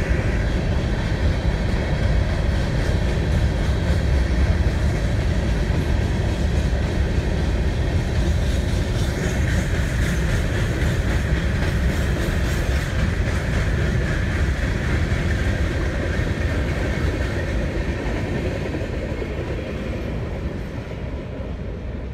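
Freight train's hopper cars rolling across a low railroad trestle: a steady noise of steel wheels on rail that fades over the last several seconds as the end of the train moves away.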